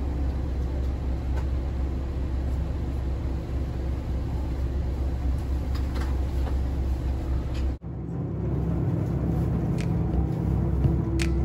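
Running noise inside a JR Shikoku 2000 series diesel express train: a steady low rumble of the diesel engine and the wheels on the rails. It breaks off for an instant past the middle, then returns with a faint engine note slowly rising in pitch.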